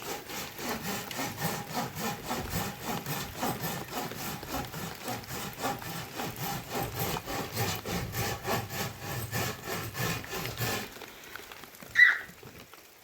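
Steady back-and-forth scraping strokes, like a hand saw or a rasping rub on wood, that stop abruptly about eleven seconds in. A brief sharp high-pitched sound follows about a second later.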